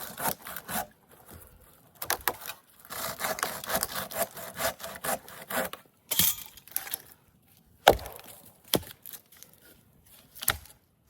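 Rough, rasping back-and-forth strokes in bursts, like hand sawing, followed by a few separate sharp knocks, the loudest about eight seconds in.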